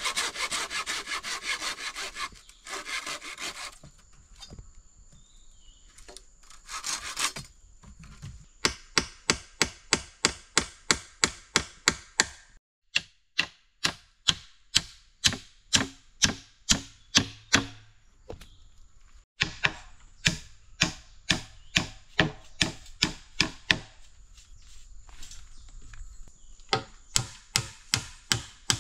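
Bamboo being cut by hand: a few seconds of rasping sawing, then long runs of sharp, even knocks, about three a second, of a blade chopping into the bamboo, pausing now and then.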